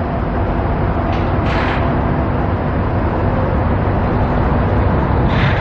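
Steady road traffic noise: a continuous rumble, with two brief hissing swells, about a second and a half in and near the end.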